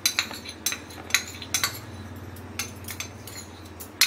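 Metal spoon clinking and scraping against a small steel cup while scooping out cornflour, a series of sharp clinks, several in the first second and a half and another near the end.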